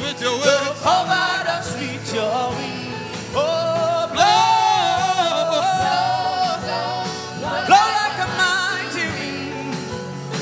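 Gospel worship singing: a sung melody with long held, gliding notes over sustained instrumental backing.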